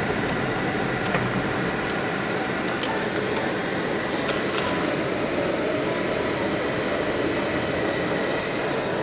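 Steady driving noise of a 2011 Dodge Charger cruising on a paved road, tyre and wind rush with the engine under it, heard from inside the car.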